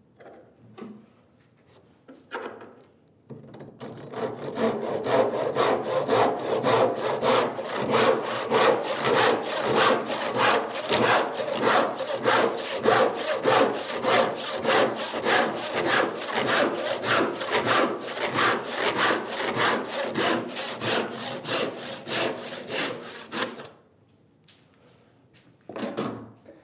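Cross-cut handsaw sawing across a softwood board: a long run of steady, even back-and-forth strokes that starts about three seconds in, after a few light knocks, and stops a few seconds before the end.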